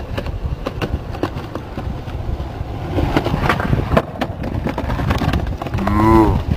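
Skateboard wheels rolling with a steady rumble over paving slabs and brick, with the sharp clack of the tail popping about three and a half seconds in and the board landing about half a second later on a frontside 180. A short pitched sound comes near the end.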